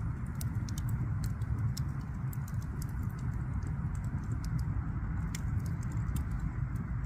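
Fire crackling in a fireplace: scattered sharp snaps and pops over a steady low rumble of the flames.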